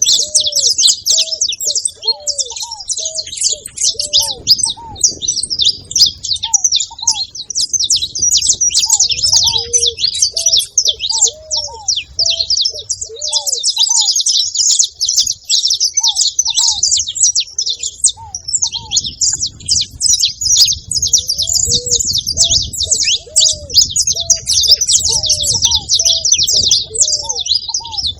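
Saffron finch (canário-da-terra) chirping and singing in a dense, unbroken stream of rapid high notes. A second, lower voice adds short arched notes in runs at the start, in the middle and through the last third.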